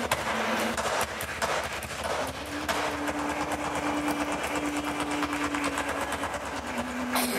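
Spanish-style music with a fast, dense clicking rhythm over long held notes.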